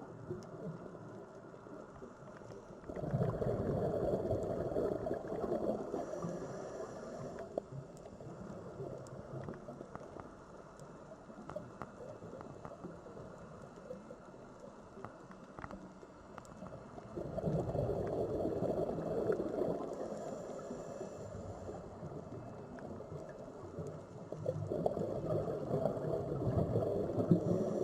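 Sea waves washing in, three swells of surf about three, seventeen and twenty-five seconds in, with a lower wash of water between them.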